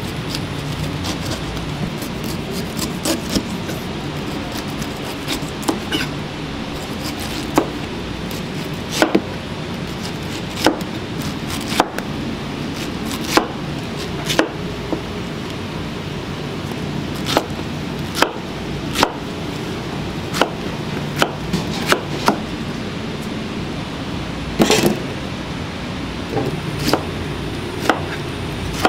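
Chef's knife slicing pineapple and knocking on a plastic cutting board: irregular sharp knocks, roughly one a second, over a steady low background hum.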